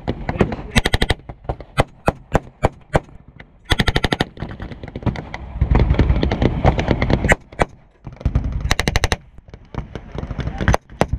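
A WWII German-style machine gun firing blanks in short rapid bursts, each well under a second long. Single shots and other gunfire are mixed in, with a dense stretch of overlapping fire from about five and a half to seven seconds in.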